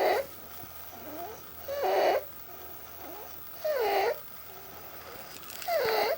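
Stridor in a child with croup (acute laryngotracheitis): loud, pitched, rasping breaths about every two seconds, four in all, with softer breaths between them. The rasp is the sign of a narrowed, swollen airway at the larynx.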